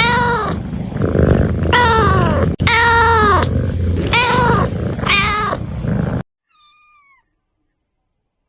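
Kittens meowing over and over, loud high calls that fall in pitch, about one a second, over a steady low hum. About six seconds in the sound cuts off abruptly, leaving one faint meow.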